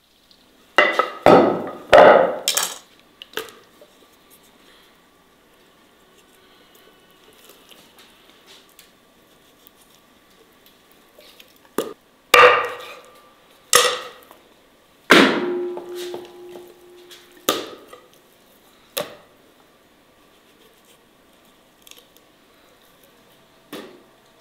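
A knife chopping through a whole raw chicken onto a wooden chopping block. There are several sharp knocks in quick succession in the first few seconds, then single chops spaced a second or more apart.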